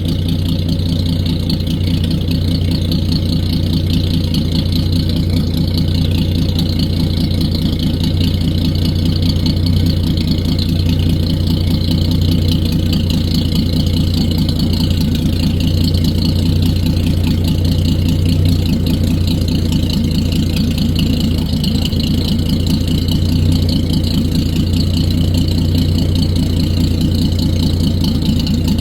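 Chrysler Crown flathead straight-six marine engine idling steadily, freshly overhauled.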